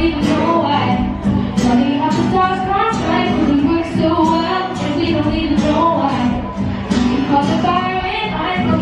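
A pop song with female vocals over a steady beat and guitar.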